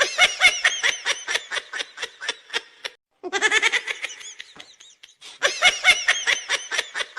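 High-pitched laughter in quick, rhythmic pulses, with a short break about three seconds in.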